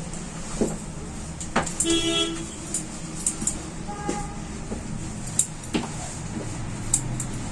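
Street traffic with a vehicle horn honking: one short honk about two seconds in and a shorter, fainter one about four seconds in. A few sharp clicks or taps are scattered through it.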